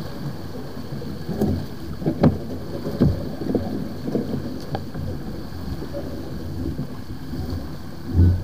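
Wind buffeting the microphone and water rushing along the hull of a sailboat under way, with a few sharp knocks from gear on deck, loudest about two and three seconds in.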